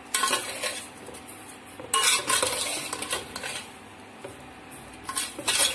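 A metal spoon stirring and scraping boiled rice and sugar in a metal pot. The scraping comes in strokes, loudest at the start, about two seconds in and near the end.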